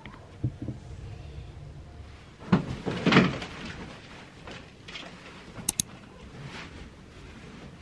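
Duvet and bedding rustling as a bed is made. The loudest part is a rush of rustling a little after two seconds in, with a few soft knocks before it and two quick sharp clicks later.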